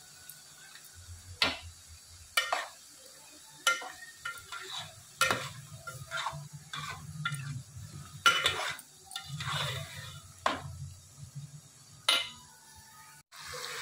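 Slotted metal spatula stirring diced potatoes and tomatoes in a metal pot, scraping and clinking against the pot's sides and bottom at irregular intervals, about once a second, with the loudest knocks near the middle and near the end.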